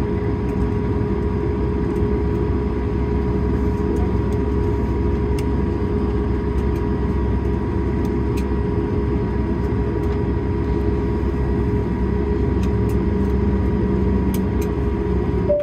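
Steady cabin noise of an Airbus A220-300 taxiing after landing: its Pratt & Whitney PW1500G geared turbofans at low power, a constant hum with one steady low tone and a fainter higher one, and a few faint ticks.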